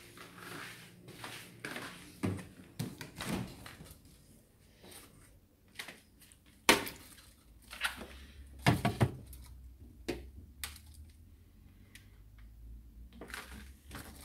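A refrigerator opened and a plastic food tub set down and pushed onto a fridge shelf: scattered knocks and clatters, the loudest a sharp knock about seven seconds in and a short run of thuds about nine seconds in.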